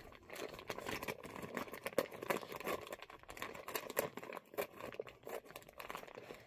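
Clear plastic bag crinkling and crackling as it is cut open with scissors and pulled apart, in an irregular run of short sharp crackles.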